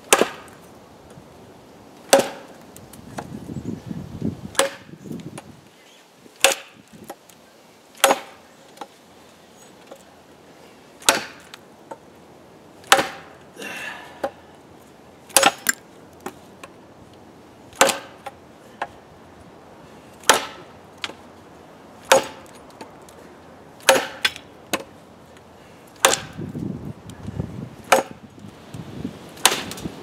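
Nature Xplore machete blade chopping into a dry, hard stick laid on a wooden block, one sharp strike about every two seconds, sometimes two in quick succession. The wood is dry and very hard, so the blade bounces back a lot rather than biting in.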